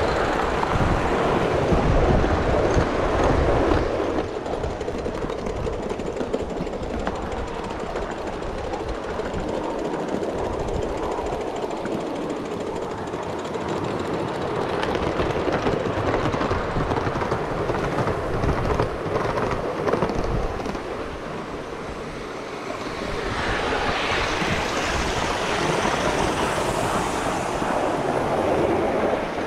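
A Gauge 1 model train running on garden railway track, its wheels and wagons rattling and clicking over the rails, with a brighter hiss for a few seconds near the end.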